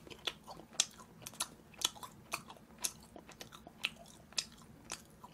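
Close-miked chewing of a mouthful of boneless braised chicken: wet mouth clicks and smacks, roughly two a second, irregular.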